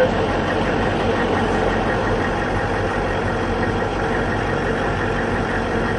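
A military vehicle's engine and road noise, heard from on top of the moving vehicle: a steady, unbroken rumble with no shots or impacts.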